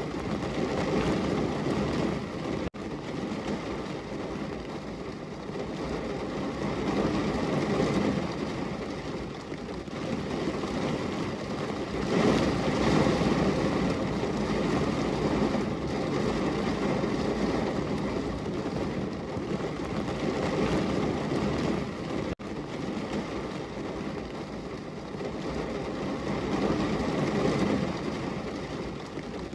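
Heavy rain pouring on a window glass, a steady downpour that swells and eases every few seconds, with two momentary dropouts about 3 and 22 seconds in.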